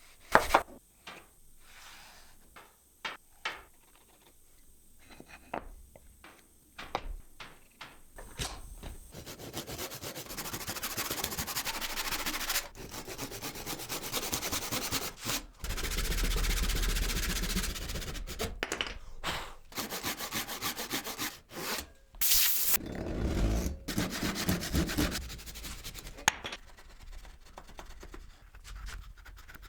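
Hand tools working wood. First come scattered light knocks and taps, then, from about nine seconds in, a long run of dense back-and-forth rasping strokes on wood with a few short pauses, which eases off near the end.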